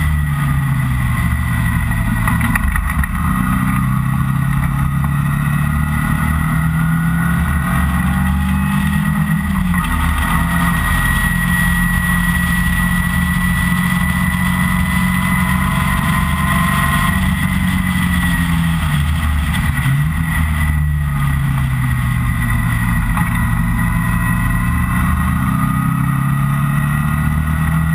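Open-cockpit sports car's engine running hard on track, its revs climbing slowly, dropping away twice and climbing again, over steady road and wind noise.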